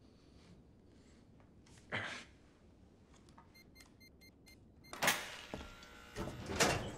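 A short grunt about two seconds in, then loud metallic clanks and knocks with some ringing in the last two seconds, from the steel-barred vault gate being handled.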